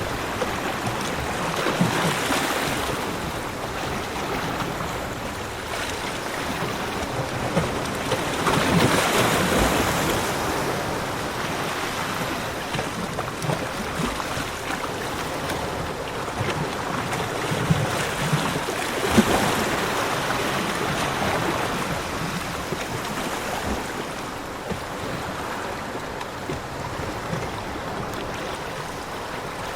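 Ocean waves breaking on a shore and surf washing in and out. Louder waves break near the start, about a third of the way in, and again past the middle.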